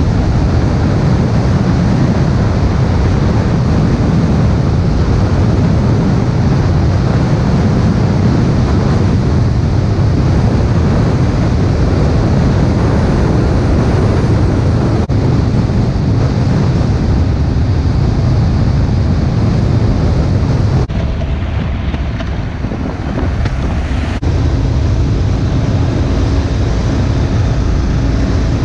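Steady rush of wind on the microphone of a camera mounted on a moving vehicle, mixed with road and engine noise. It drops quieter for about three seconds roughly two-thirds of the way through.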